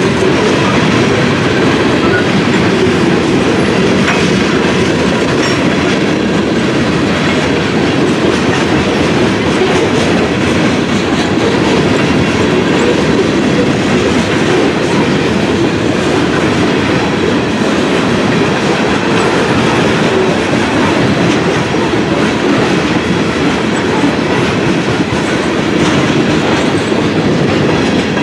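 Freight train's covered hopper and tank cars rolling past close by, a steady, loud rumble and clatter of steel wheels on the rails.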